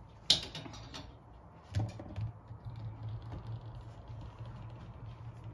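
A sharp click a moment in, then a few lighter clicks and knocks, followed from about two seconds by a low steady hum.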